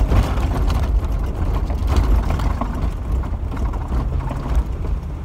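Off-road vehicle driving over a wet, sandy wash, heard from inside the cab: a steady low rumble of engine and tyres that eases slightly near the end.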